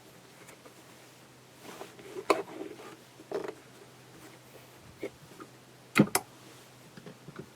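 A few separate sharp metallic clicks and knocks, loudest as a close pair about six seconds in, from a tuck marker attachment being handled and fitted to a cast-iron Singer 201K sewing machine before sewing.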